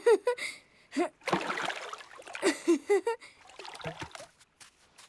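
Cartoon sound of water splashing and sloshing in a small plastic bucket as it is scooped from a tide pool, with a few short wordless vocal sounds from a child's voice.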